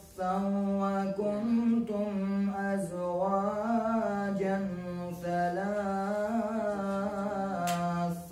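A man reciting the Quran in Arabic in the melodic chanted style of a qari, holding long notes with wavering ornaments and pausing only briefly for breath at the start.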